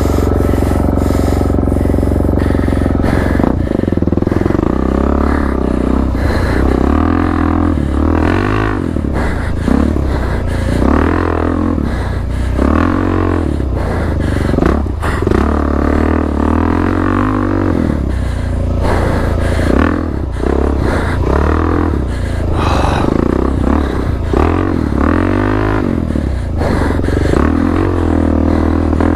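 Suzuki DR-Z400's single-cylinder four-stroke engine through an aftermarket Black Widow exhaust, revving up and falling back again and again as the dirt bike is ridden through the trail.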